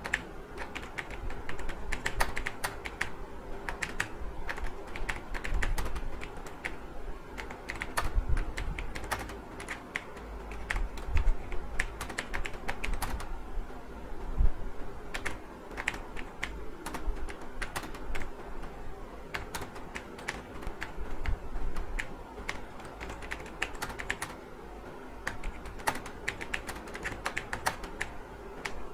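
Typing on a computer keyboard: a steady, irregular stream of fast keystrokes.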